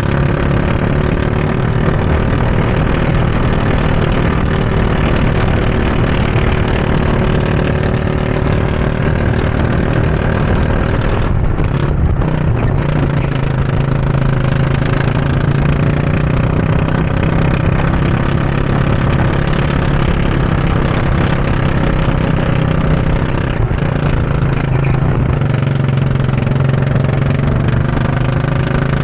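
Go-kart engine running hard on a lap, heard from the driver's seat, its pitch rising and falling as the kart speeds up and slows for corners.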